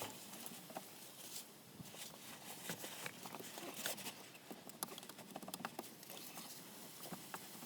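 Faint, scattered light clicks and taps of metal parts handled as the Diravi power-steering valve assembly is worked off the steering rack.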